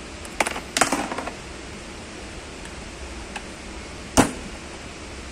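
Hard plastic clicks and knocks as the steering wheel of a children's battery ride-on car is handled and fitted onto its column: a few quick clicks and rattles about a second in, then one loud knock about four seconds in, over a steady low hiss.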